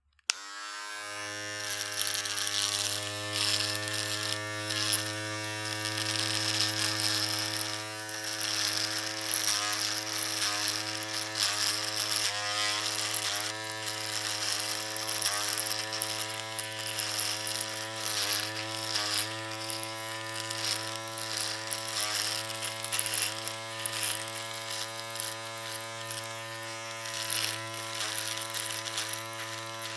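Electric shaver switched on with a click, its motor coming up to speed within a second into a steady buzz with a high hiss. From about eight seconds in the pitch dips briefly again and again.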